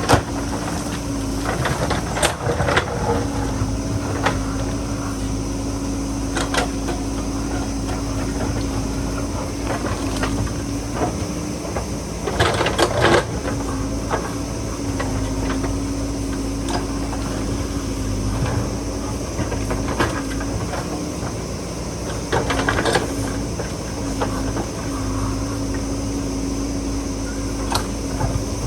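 A JCB backhoe loader's diesel engine runs steadily under load, with scattered clanks and scraping from the digging work. Two longer bursts of scraping and knocking come a little before halfway and about three-quarters of the way through.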